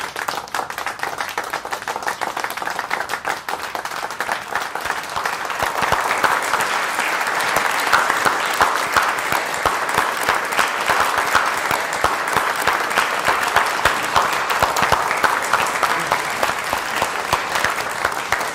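A crowd applauding, with many hands clapping at once; the applause swells louder about five seconds in and keeps up steadily.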